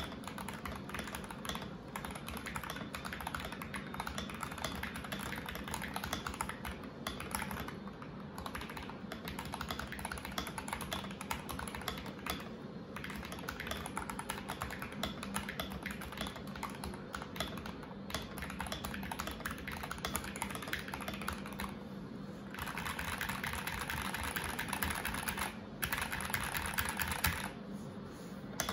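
Mechanical keyboard fitted with Akko OSA-profile keycaps being typed on continuously, a rapid stream of key clacks. The typing gets a little louder and brighter for a few seconds near the end.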